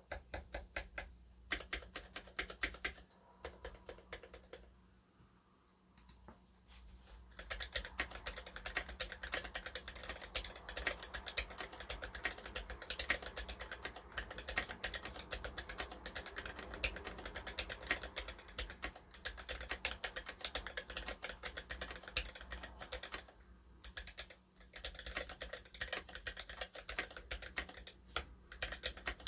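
Typing on an HJ75 acrylic-case custom mechanical keyboard with lubed Gateron Yellow linear switches and lubed stabilizers. A few keystrokes come first, then a pause of about three seconds, then fast continuous typing with one short break about three-quarters of the way through.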